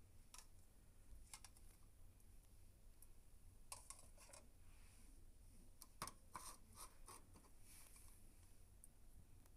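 Faint, scattered light clicks and scrapes of things being handled, in clusters with quiet between, the sharpest click about six seconds in.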